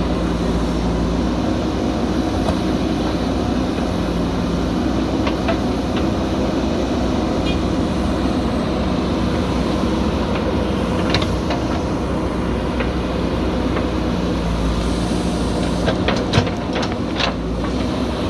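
Diesel engine of a backhoe loader running steadily while working, with a few sharp metal knocks and clanks, most of them near the end.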